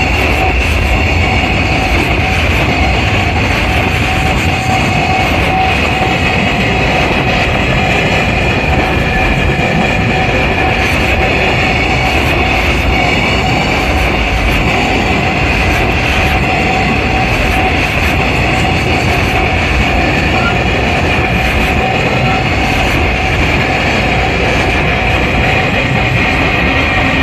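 Freight train passing over a level crossing, its wagons rolling and clattering over the rails in a steady, continuous run. The train is climbing a steep grade with a helper locomotive at the rear pushing.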